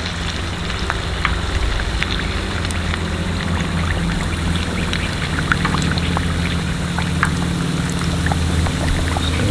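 Battered reef cod deep-frying in a pot of vegetable oil: a steady sizzle full of small crackles and pops as extra batter is drizzled onto the hot oil. A steady low hum runs underneath.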